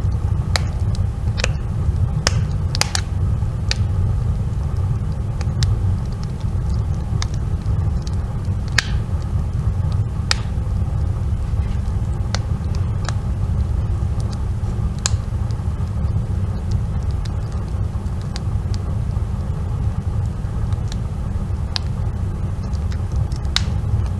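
Wood fire burning with a steady low rumble and scattered sharp crackling pops.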